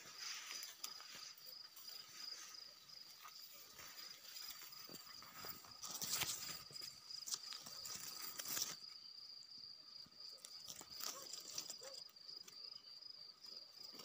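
A cricket chirping steadily in an even, fast pulse at night. Over it, leaves and twigs rustle as branches are pushed aside, loudest about six and again about eight and a half seconds in.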